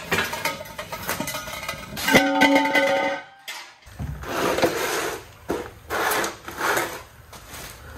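Metal clanks with a ringing tone in the first few seconds. After a short break, several short bursts of hissing compressed air as an air-hose chuck is pressed onto a tyre valve.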